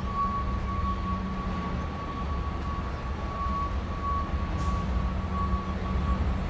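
Steady city street noise: a low rumble with a constant high whine.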